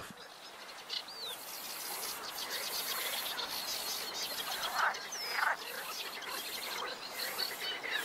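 Birds calling in a reed bed: a fast, high chirring starts about a second in and carries on, with a couple of short falling whistles and a few harsher, lower calls midway.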